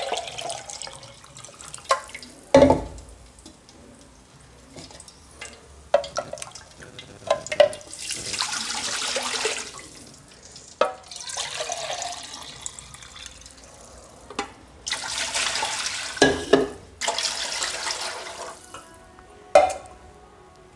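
Water poured from a plastic measuring jug into a cooking pot in several pours of a few seconds each, with short knocks of the jug against the vessels between pours.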